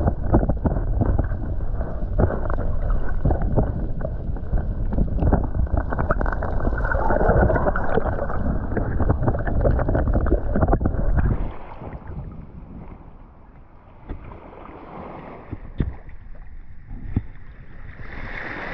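Wind buffeting the microphone: a loud, rumbling rush full of crackles that drops away suddenly about eleven seconds in, leaving a quieter background hiss.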